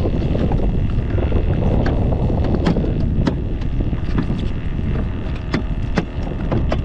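Steady wind buffeting the microphone on a jet ski, with scattered sharp clicks and knocks from fishing gear being handled.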